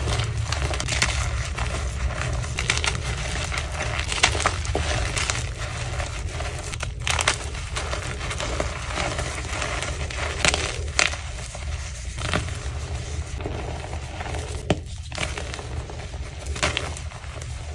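Blocks of gym chalk coated in Holi colour powder being crushed by fingers: a dense, continuous crunching and crumbling with many sharp cracks as the chalk breaks into powder, over a low steady hum.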